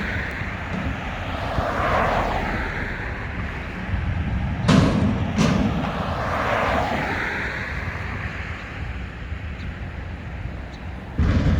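Mack McNeilus front-loader garbage truck's engine running, rising and falling in slow swells as it works the lift at a container. Two sharp bangs less than a second apart come about halfway through, and another thump near the end.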